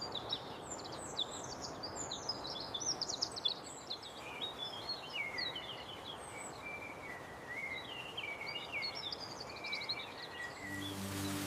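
Small birds chirping and warbling in quick runs of notes over a steady outdoor hiss. Near the end the birdsong stops and a rain-like hiss with a low musical drone takes over.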